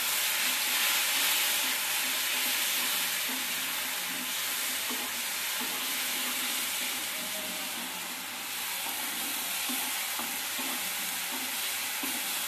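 Onion paste and spices sizzling as they fry in hot mustard oil in a kadai. A spatula stirs through them, with short scrapes and taps against the pan, mostly in the second half.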